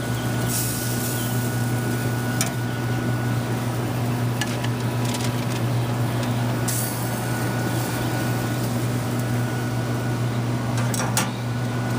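A steady low machine hum, with a few light clicks and knocks and a couple of brief hisses.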